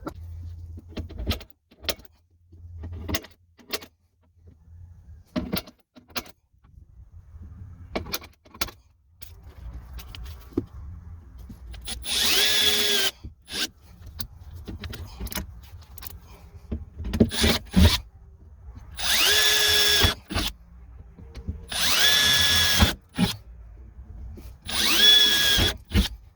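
Power drill run in four short bursts, each spinning up and then holding a steady whine, with clicks and knocks from handling parts in between.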